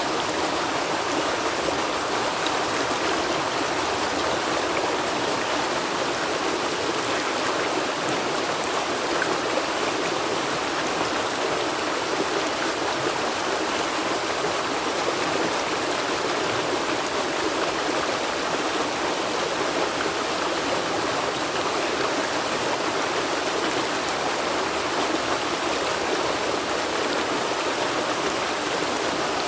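River water flowing and rushing over stones, a steady, even water noise with no breaks.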